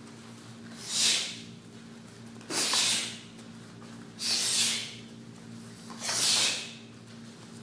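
Sharp hissing exhalations timed with the punches of a Taekwon-Do four-direction punch drill, four in a row at an even pace of about one every 1.7 seconds, over a faint steady hum.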